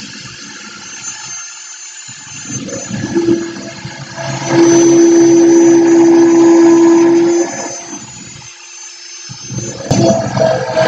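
Cordless drill boring a bent drill bit into a block of 2x4 wood in repeated runs, a way of straightening the bent bit. The motor stops briefly about one and a half seconds in, then winds up to a loud steady whine. It slows and stops again and starts up once more near the end.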